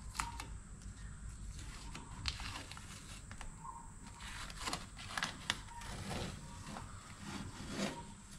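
Light, scattered scrapes and taps from a template being handled and pressed against the truck's sheet-steel firewall, over a steady low hum.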